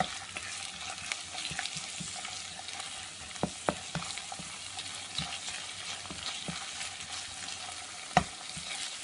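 Onions, green chillies and ginger-garlic paste sizzling in hot oil in a frying pan while being stirred with a spatula, as they roast. The spatula knocks against the pan a few times, once more loudly near the end.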